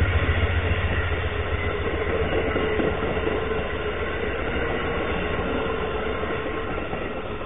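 Amtrak passenger coaches rolling past on the rails, recorded through a trail camera's microphone: a dense wheel rumble with a steady hum. It slowly gets quieter as the last car goes by.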